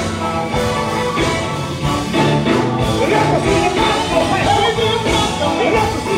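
Live gospel band playing with singers. An electric guitar and bass carry the music, and voices singing over it come in stronger about halfway through.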